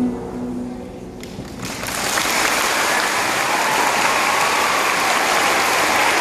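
The last plucked note of a guzheng and pipa duet rings and dies away, then audience applause starts about two seconds in and carries on steadily.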